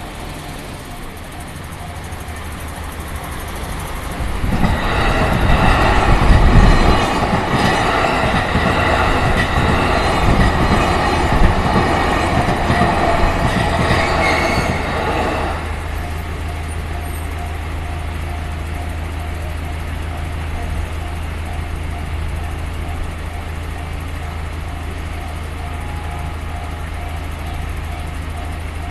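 JR Chuo Line electric train passing through a level crossing. It builds from about four seconds in, is loudest around six to seven seconds with wheel and rail noise, and has gone by about sixteen seconds. The crossing's warning bell rings steadily under it and goes on after the train has passed.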